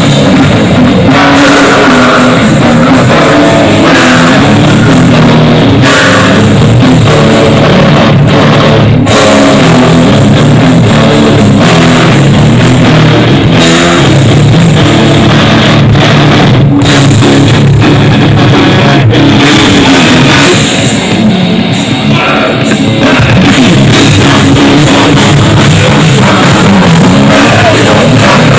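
Death metal band playing live through a PA: distorted electric guitars, bass and drum kit, very loud throughout, thinning briefly a little after twenty seconds in.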